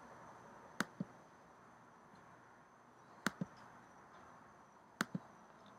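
Three faint double clicks, spaced about two seconds apart, each a sharp click followed a fraction of a second later by a softer, lower one, over a steady low hiss with a thin high whine.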